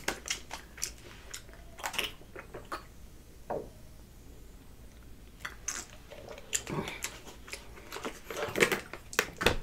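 A person chewing food close to the microphone, with wet mouth clicks and smacks. There is a quieter stretch in the middle, and then the chewing clicks start again.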